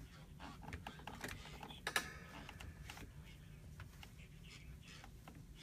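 Faint studio room tone with scattered small clicks and taps, and one sharper click about two seconds in.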